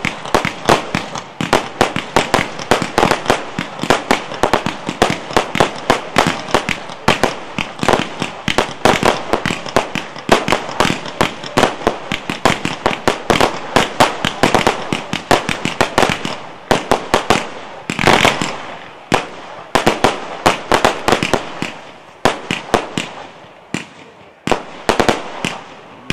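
Fireworks barrage of gold comets firing in rapid succession, many sharp bangs a second, thinning out into separate volleys with short gaps near the end.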